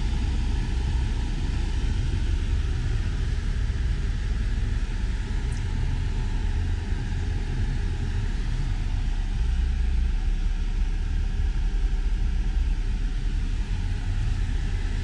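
Steady low rumble inside a parked Cadillac CT6's cabin, with its 3.6-litre V6 idling.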